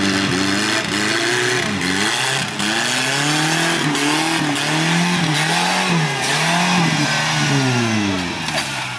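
Off-road 4x4's engine revving up and down over and over, about once a second, as it churns through deep mud, with a few knocks; the revs settle lower near the end.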